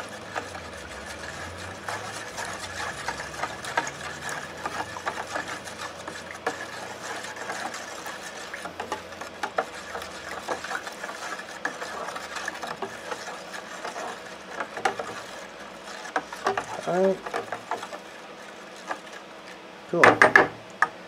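A metal spoon stirring baking soda into water in a plastic tub, making many small irregular clicks and scrapes against the tub. Near the end come a few loud, sharp knocks of the spoon against the tub.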